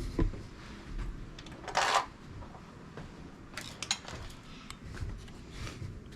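Scattered light clicks and rustles of hands handling wiring and tape, with one brief louder rustle about two seconds in.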